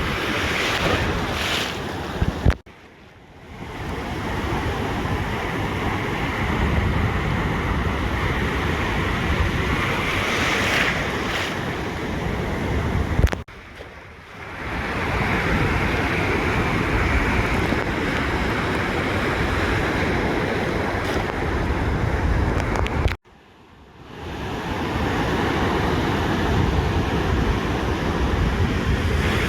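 Ocean surf washing on a beach, with wind buffeting the microphone. The sound cuts out abruptly three times, about ten seconds apart, and swells back within a second or two each time.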